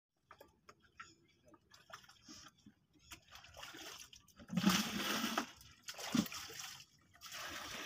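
Floodwater scooped by hand and poured into a plastic bucket, splashing and sloshing. A few light knocks come first, then several pours, the loudest about halfway through.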